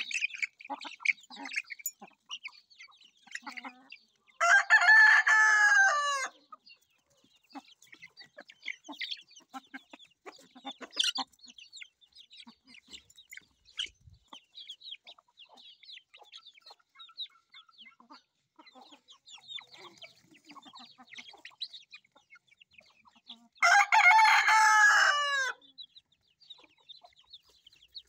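Chickens: a rooster crows twice, one long call about four seconds in and another near the end, while hens cluck and chicks peep in short, scattered calls throughout.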